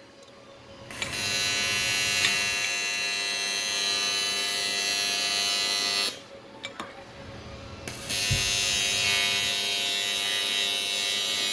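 Electric welding arc buzzing steadily as a socket is welded to an aluminium part. It runs for about five seconds, stops, and starts again about eight seconds in.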